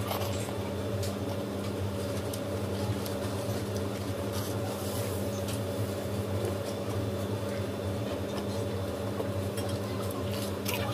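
A steady low hum throughout, with a few short crunches and clicks of chicken being bitten and chewed, near the start and again near the end.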